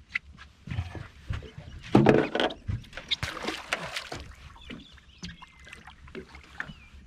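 Water splashing and sloshing, with a few knocks against the boat hull, as a barramundi is held in the water at the boat's side and released; the loudest splashing comes about two seconds in and again a second or so later.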